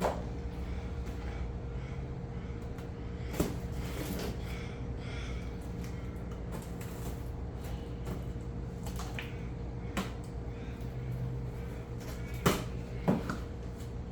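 Cardboard shipping box being opened and handled: a few sharp knocks and bumps spread through, with quieter rustling between, over a steady background hum.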